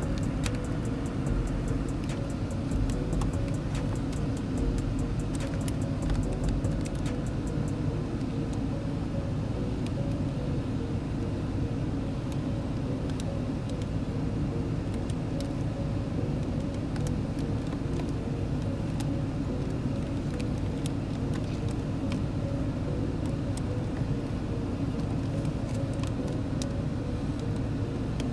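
A car engine idling steadily. Light clicks and taps come thick in the first several seconds and more sparsely after.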